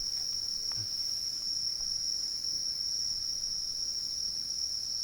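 Crickets trilling in a steady, unbroken high-pitched chorus, with a couple of faint clicks.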